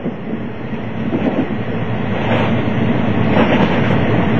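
Running noise of a JNR 381-series limited-express electric train heard from inside the car, with wheels clacking over rail joints. It grows louder over the first couple of seconds.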